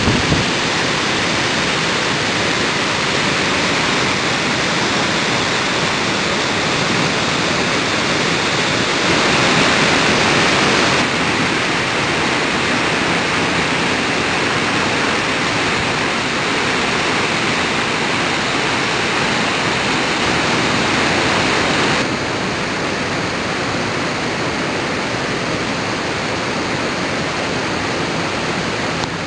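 Steady rushing noise of Victoria Falls, its water pouring down the cliff face into the gorge. It swells briefly about nine seconds in and drops a notch for the last several seconds.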